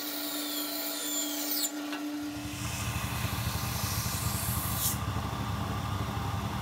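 Bandsaw running with a steady hum as it cuts a small hardwood wedge; about two seconds in the sound changes to a belt sander running, grinding the wedge against the abrasive belt.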